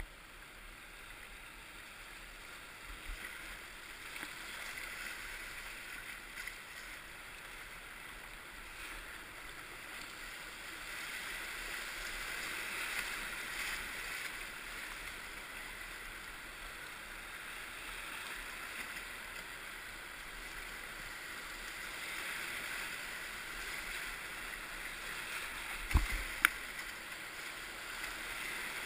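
Whitewater rushing and churning around a kayak running a river rapid: a steady hiss of moving water that swells louder midway and again toward the end. A sharp knock stands out near the end.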